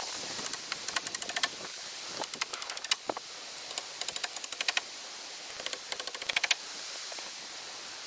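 Handheld power tool driving fasteners into rough slab-wood fence boards: four short bursts of rapid clicking.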